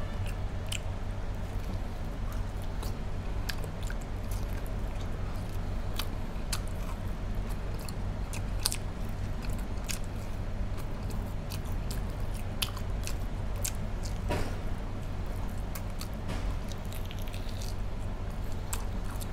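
A person eating pork ribs braised in coconut water close to the microphone: irregular biting and chewing clicks over a steady low hum.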